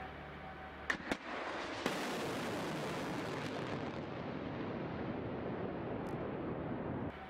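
A missile launched from a ground launcher. Two sharp cracks come about a second in, then the rocket motor ignites with a sudden loud rushing blast about two seconds in. After that a steady rushing noise runs on and stops abruptly near the end.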